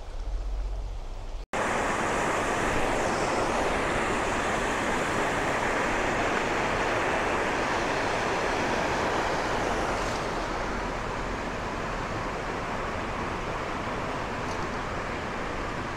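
River water rushing over rocks: a steady, even rush that starts abruptly about a second and a half in and eases slightly around ten seconds.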